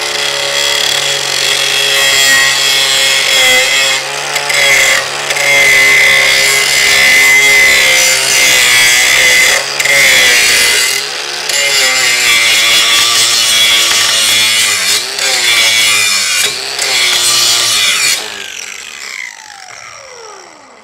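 Angle grinder with a grinding disc grinding the galvanized coating off steel grating: a steady high whine and hiss, with a few brief dips along the way. Near the end it is switched off and spins down with a falling whine.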